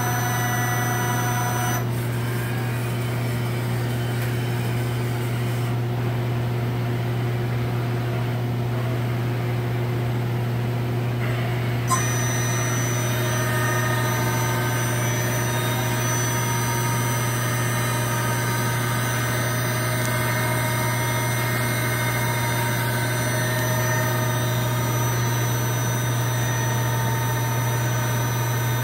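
Mori Seiki Duracenter 5 CNC vertical machining center running under power: a steady hum with several whining tones above it. The whine drops away about two seconds in and comes back with a click about twelve seconds in, as the spindle head moves.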